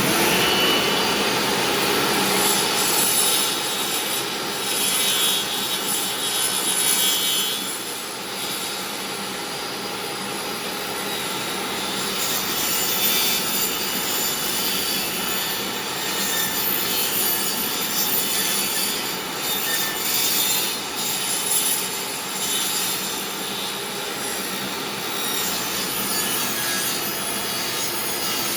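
Old, loud DeWalt table saw running, its blade sawing into a wooden disc as the disc is turned over it to cut a circle.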